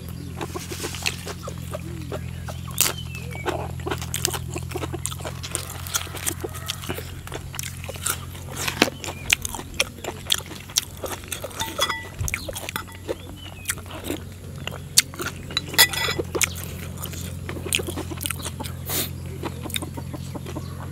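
Close-miked eating of raw beef: chewing and mouth smacks with many short sharp clicks and taps, over a steady low hum.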